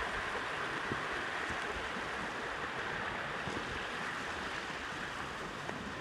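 Mountain stream running over rocks, a steady rush of water.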